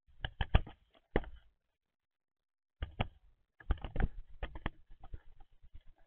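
Eurasian collared doves jostling on a feeder tray close to the microphone: an irregular clatter of taps and knocks from bills, feet and seed against the feeder. It comes in two runs with a quiet gap of about a second near the middle, the second run busier.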